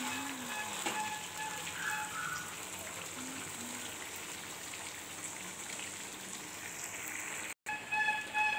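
Chicken and potato pieces sizzling in oil and masala in a kadai, stirred with a metal spatula: a steady frying hiss. It breaks off briefly near the end.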